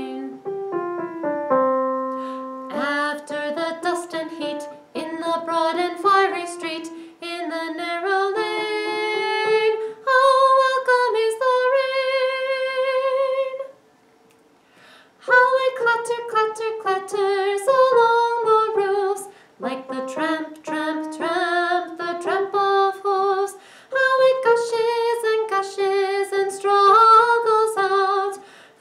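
A woman singing a choir melody with piano accompaniment, the voice coming in after a few piano notes and holding some notes with vibrato. The singing breaks off for about a second and a half midway, then carries on.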